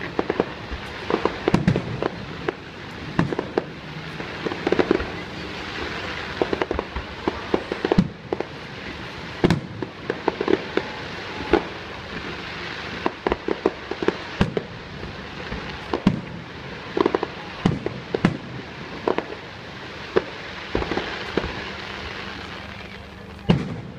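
Fireworks display: an irregular run of sharp bangs from bursting aerial shells, over a steady crackle from glittering crackle stars.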